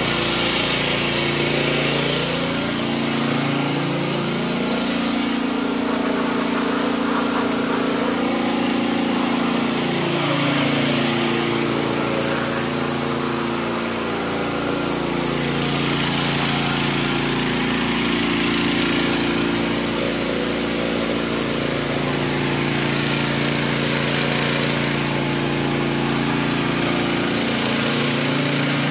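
Small gasoline engine of a pressure washer running steadily, its pitch drifting up and down now and then.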